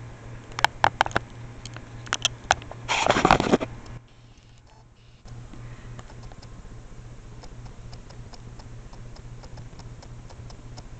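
A camera being grabbed and moved by hand: a few sharp clicks and knocks, then a loud rustling scrape about three seconds in. After a short near-silent gap, a faint, even ticking runs over a low hum.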